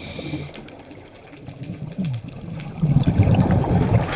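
Scuba regulator exhaust bubbles rumbling underwater as a diver breathes out. It fades in the first half-second, goes quieter for about two seconds, then comes back loud about three seconds in.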